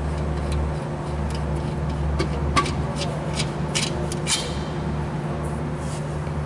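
Irregular short metallic clicks, a few per second, from a wrench working the bolt of a rear disc-brake caliper loose, stopping a little past halfway, over a steady low hum.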